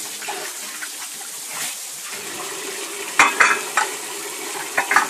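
Dishes being washed by hand: tap water running steadily into a basin, with ceramic bowls and dishes clinking and clattering, several times about three seconds in and again near the end.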